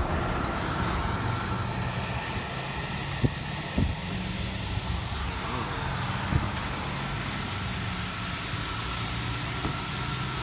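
Car wash dryer blowers running: a steady rush of air with a low hum and a faint high whine. A few short knocks about three, four and six seconds in.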